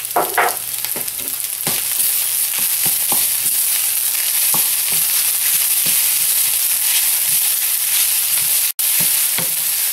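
Rice and chopped vegetables sizzling in sesame oil in a frying pan, with a steady high hiss. The rice is being stirred, with scattered clicks of the utensil against the pan. The sound cuts out for an instant near the end.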